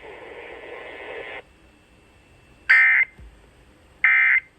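Radio hiss that cuts off abruptly about a second and a half in, followed by two short, identical, buzzy data-tone bursts a little over a second apart: the Emergency Alert System's digital end-of-message code closing the warning broadcast.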